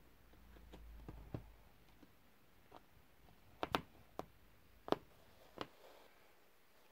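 A cat batting and pawing at a lace curtain: a handful of soft, sharp clicks and taps in a quiet room, the loudest coming a little past the middle.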